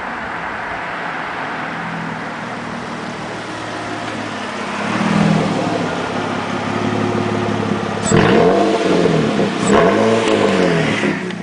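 Exhaust of a 2001 Nissan Maxima's 3.0-litre V6 as the car drives by: a steady drone, swelling about five seconds in, then two sharp revs near the end that rise and fall in pitch.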